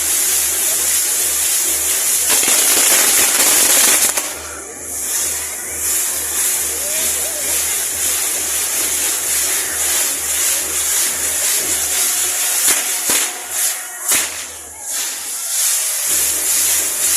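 Fireworks burning with a steady spraying hiss and crackle, as on a castillo firework tower, with a few sharp cracks near the end.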